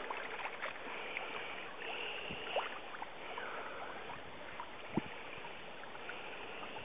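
Soft splashing and lapping of pond water as a dog paddles out after a thrown stick, with a few faint clicks.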